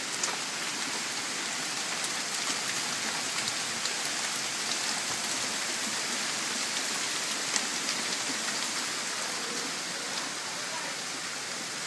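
Hailstones pelting the ground and nearby surfaces in a thunderstorm: a steady, dense hiss of impacts with many sharp clicks scattered through it, one louder click about seven and a half seconds in.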